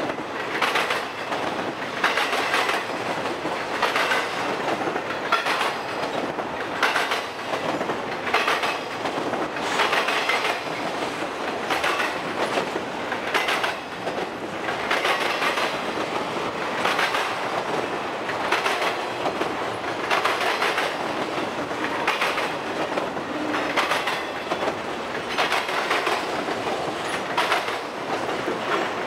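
Freight cars of a BNSF intermodal train, truck trailers on flatcars, rolling past with a steady rumble. The wheels clack in regular pairs about every one and a half to two seconds as each set of trucks passes over the track.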